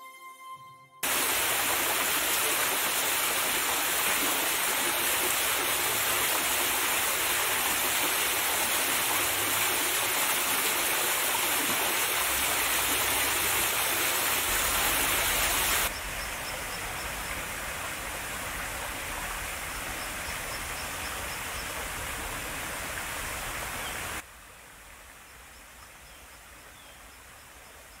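A small waterfall and its stream: a steady rush of falling water, recorded binaurally, after the last second of soft piano music. About halfway through the rush drops to a lower level, and drops again near the end.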